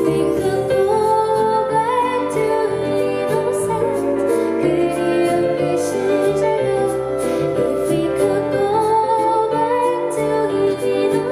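Live performance of a gentle song: a woman singing a slow, wavering melody over instrumental accompaniment with a bass line.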